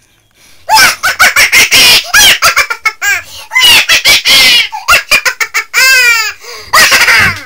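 A person making loud, silly chicken-like vocal noises: quick clucks and squawks in rapid bursts, starting about a second in.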